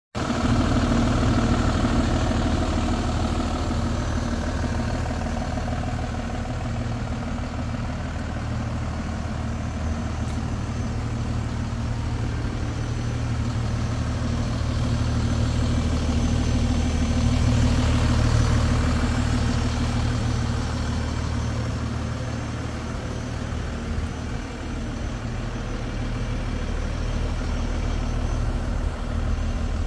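DAF CF 260 truck's diesel engine idling with a steady low hum, a little louder a bit past halfway.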